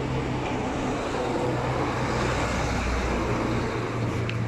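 Road traffic noise: a motor vehicle's engine runs with a steady low hum, a little louder in the middle.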